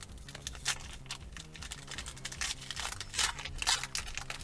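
Foil booster pack of trading cards being torn open and crinkled by hand: an irregular run of sharp crackles, busiest in the second half.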